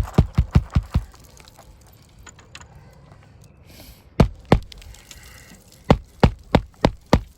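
Rapid sharp knocks on a shingle roof, about three or four a second, in runs: one at the start, two more about four seconds in, and another run near the end.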